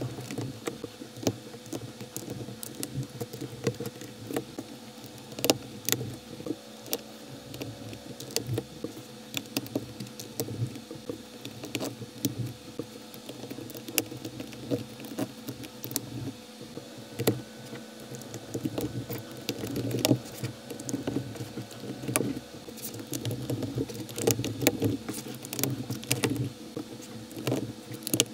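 LEGO-compatible plastic bricks and plates being pressed together by hand: irregular sharp clicks and snaps as studs seat, with quieter handling noise in between.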